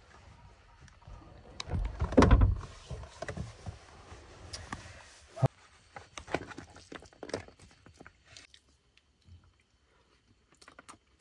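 Handling noises in a car's cargo area. There is a loud rustle and thump about two seconds in as someone shifts on the bedding. Then a metal spatula scrapes and clinks against an aluminium cooking pot and foil plates while rice is dished out.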